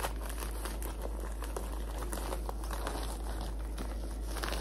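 Thin plastic courier mailer bag crinkling and rustling with many small crackles as it is pulled open and handled.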